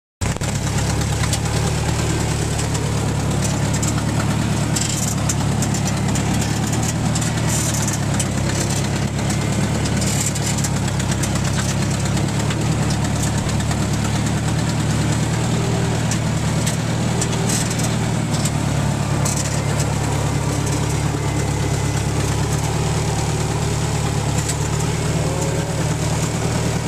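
Allis-Chalmers D17 tractor engine running steadily at an even pace while pulling a heavy load, with scattered light rattles.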